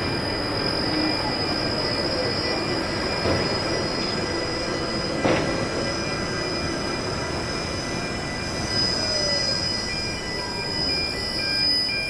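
Toy tower crane running its hoist, a steady mechanical whir with a high, steady whine, and a single sharp click about five seconds in.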